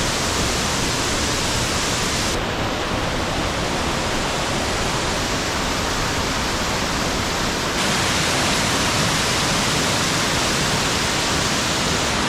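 Waterfall rushing in a steady, dense hiss; the sound turns duller about two seconds in and brighter again near eight seconds.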